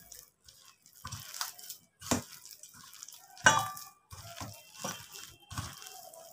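A hand squishing and mixing a wet flour-and-egg batter in a steel bowl: irregular wet squelches, with one sharper knock against the bowl that rings briefly about three and a half seconds in.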